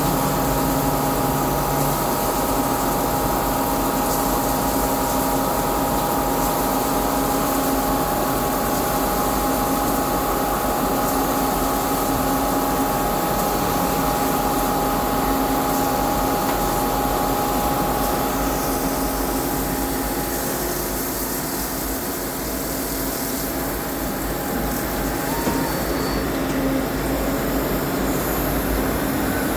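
CNC lathe running, turning a cone-shaped part: a steady machine noise with constant whining tones, one of which drops out about two-thirds of the way through.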